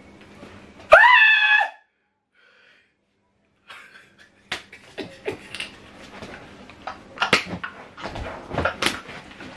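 A man's loud, high-pitched scream of joy and relief at passing his exams, lasting under a second, about a second in. It cuts to silence for about two seconds, then comes sobbing laughter with sharp gasps and breaths.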